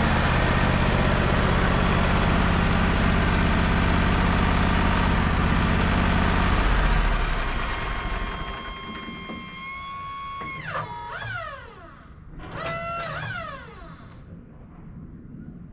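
Wood-Mizer LT35 portable sawmill running steadily with a loud drone through a cut in yellow pine, dropping off about seven seconds in. A high whine from the mill then holds and falls away, and a second shorter whine rises and falls soon after.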